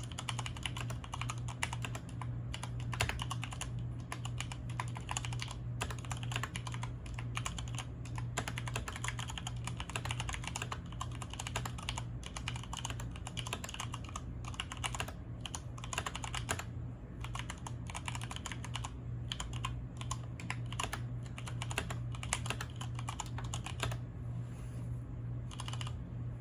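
Continuous typing on a mechanical keyboard with stock, unlubed stabilizers: a dense, uneven run of key clicks that thins out near the end. A steady low hum runs underneath.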